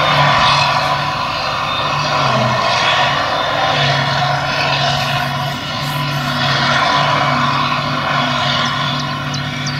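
Claas Jaguar 950 self-propelled forage harvester running steadily under load, picking up and chopping a grass swath: engine hum over a continuous rush of machine noise.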